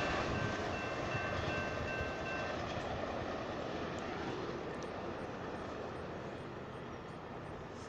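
Amtrak Coast Starlight Superliner passenger train rolling away on the rails, its rumble fading steadily as it recedes. A steady high ringing tone sounds over it and stops about two and a half seconds in.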